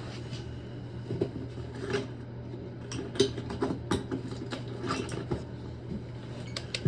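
Scattered light clicks and clinks of small metal valve parts and hand tools being handled during a supply-stop valve rebuild, over a steady low hum.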